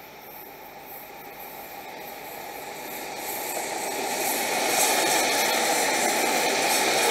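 A locomotive-hauled train passing at speed: a red electric locomotive and its coaches come closer with a rising rush of running and wheel noise. The noise builds to its loudest about four and a half seconds in as the train goes by, and holds there.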